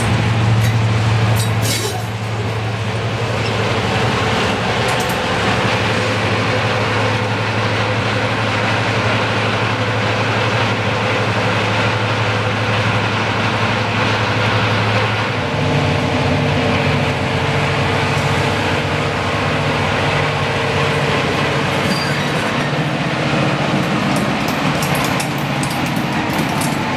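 A Class 55 Deltic diesel locomotive's Napier Deltic two-stroke engines running as it moves slowly past along a platform, a loud steady drone. About halfway through the engine note changes to a higher set of tones.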